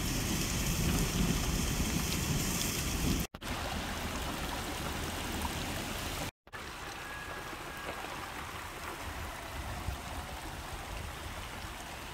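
Muddy rainwater runoff splashing down a rocky slope as a small waterfall and running over gravel as a shallow stream: steady rushing water. It is broken by two brief cuts to silence, about three and six seconds in, and gets quieter after each.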